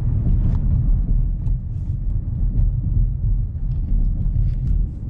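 A 2018 Mazda3 being driven: a steady, loud low rumble of engine and road noise.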